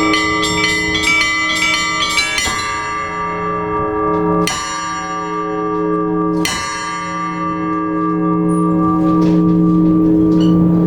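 Orthodox church bells ringing: small bells chime in quick succession for the first two and a half seconds, then stop, and a heavier bell strikes three single strokes about two seconds apart, each leaving a long ringing hum. Near the end a rising rushing noise builds under the hum.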